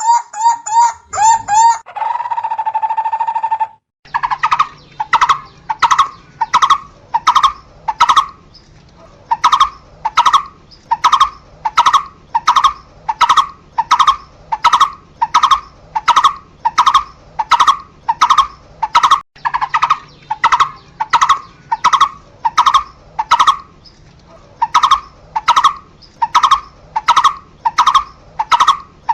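Barbet calling: a long, regular series of repeated notes, a little under two a second. It opens with a quick run of notes and a held tone before a brief break.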